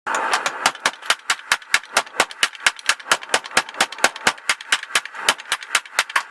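Hand hammer striking hot steel on an anvil in a fast, even rhythm of about five blows a second, over a steady hiss: the head of an old ball peen hammer being drawn out into a hammer eye punch.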